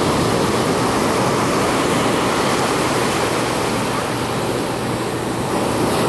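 Ocean surf breaking and washing up a sandy beach: a steady, even rushing of water.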